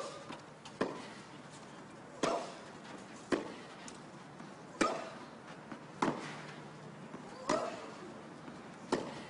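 Tennis rally: a serve and then rackets striking the ball back and forth, about eight sharp hits roughly every one and a half seconds.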